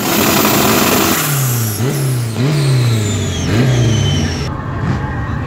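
A racing vehicle's engine accelerating hard through the gears in a drag run: its note climbs and drops back sharply at each of three gear changes, then holds steadier.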